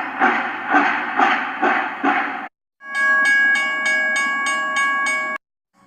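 Cartoon train sound effect: a rhythmic train chugging, about two pulses a second. Then, about halfway through, a held train horn that cuts off sharply.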